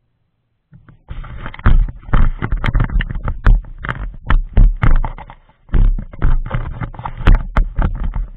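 Handling noise: a dense, irregular run of loud knocks, taps and rubbing, with low thuds, as hands fiddle with a plastic camera mount in a car's cabin. It starts just under a second in and pauses briefly a little past the middle.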